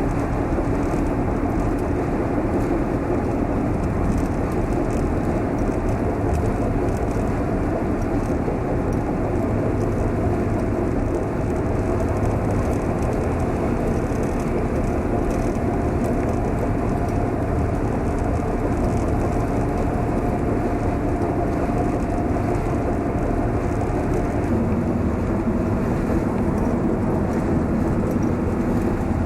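Steady road and engine noise of a moving vehicle, heard from inside the cabin, an even rumble with a faint steady hum.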